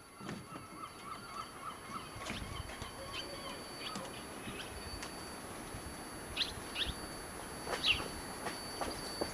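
Small birds chirping: a quick run of light chirps in the first two seconds, then a few sharper, higher chirps later on, over a steady faint outdoor background.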